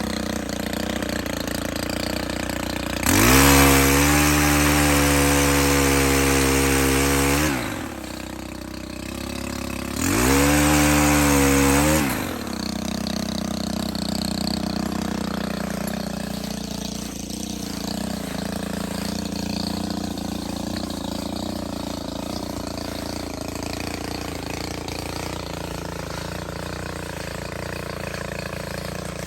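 Stihl HT 131 pole saw's small engine running at low revs, opened up to full throttle twice: once about three seconds in for some four seconds, then again briefly near the middle, each time dropping back. This is the pattern of cutting tree limbs.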